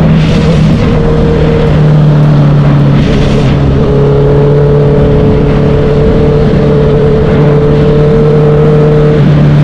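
Honda CB650F's inline-four engine and exhaust running loud at a steady, held engine speed, with little change in pitch.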